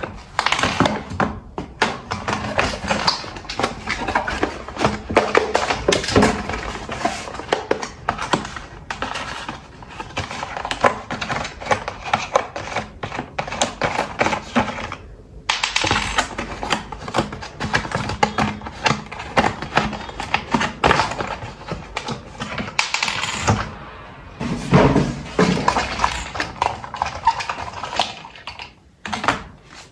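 Packaging being handled by hand: a dense, irregular run of taps, knocks and crinkles as a box and its contents are opened and moved about, with a brief pause about halfway through.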